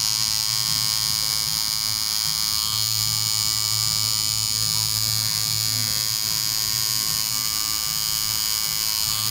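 Electric tattoo machine buzzing steadily as its needle works into the skin of a leg, retouching an existing tattoo.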